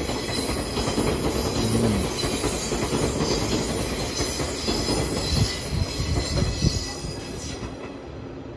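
Electric train running through a station, its wheels squealing on the rails, with a few clacks over rail joints. It fades away near the end.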